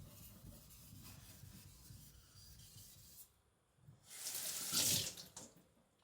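Faint scraping of a carbon-steel cleaver blade being stroked on a wet whetstone, then, about four seconds in, a louder hissing rush lasting a second or so.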